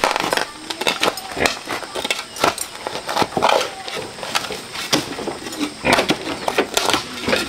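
Shovel and hoe blades chopping and scraping into dirt, the strikes coming irregularly about twice a second.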